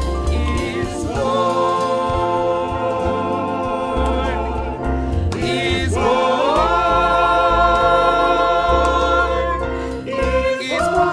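A mixed choir of men's and women's voices singing a Christmas carol in long held notes, each new phrase rising into a sustained chord, about a second in, near the middle and near the end.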